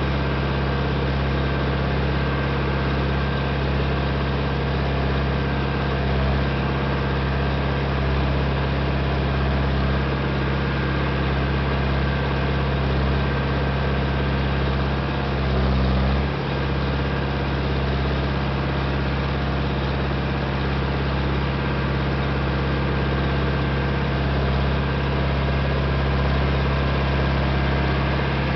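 International Harvester 574 tractor engine running steadily under load as it pulls a two-bottom plow through the soil, heard from the driver's seat. The engine note briefly changes about halfway through.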